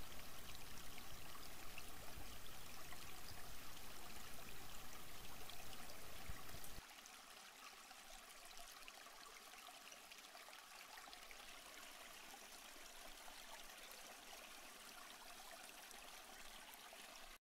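Running water, a steady stream-like rush. About seven seconds in it cuts abruptly to a much fainter hiss, its low rumble gone.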